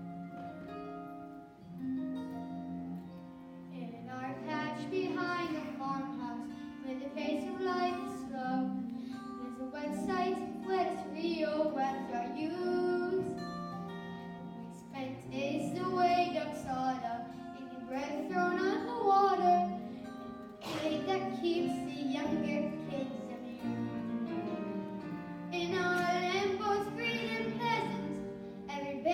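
Children singing a musical-theatre song over instrumental accompaniment. The voices come in about four seconds in, after a short stretch of accompaniment alone.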